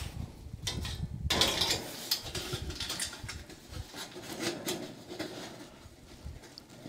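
Light metal clinks, scrapes and rattles as a sheet-metal cone smoker is handled and set over its grate on a campfire tripod, busiest about a second and a half in. Wind rumbles on the microphone underneath.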